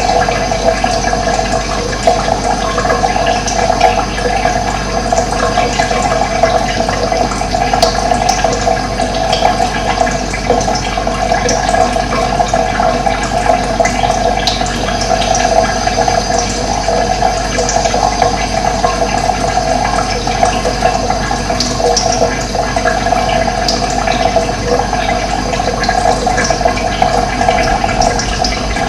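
Running water flowing steadily, an even rushing sound with small splashy ticks on top.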